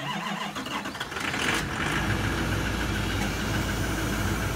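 Cold start of a 6.6-litre LMM Duramax V8 turbodiesel at about −25 degrees: the starter is already cranking, the engine struggles a little to turn over, catches about a second and a half in, and settles into a steady idle. The owner thinks it cranked before the glow plugs had warmed up.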